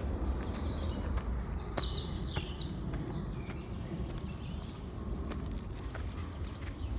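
Footsteps walking on a forest path, heard as irregular sharp steps over a steady low rumble. A bird sings a short run of high whistled notes, some gliding, about a second in.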